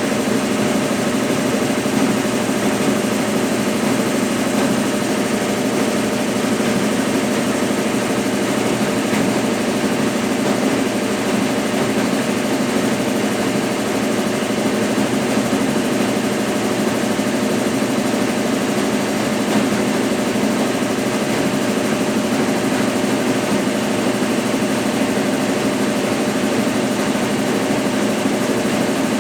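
Consul Facilite 10 kg top-loading washing machine running its wash stage with a load of bed and bath linen: a steady, unbroken motor hum.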